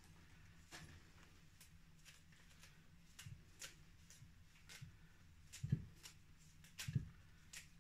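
Faint, irregular snapping and rustling of fresh lemon balm leaves being plucked off their stems and dropped into a stainless steel pot, with two soft knocks in the second half.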